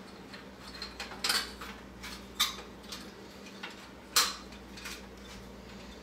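Plastic toy dishes, cups and cutlery clacking as they are set into a plastic dish rack: a few sharp separate clacks, the loudest about four seconds in.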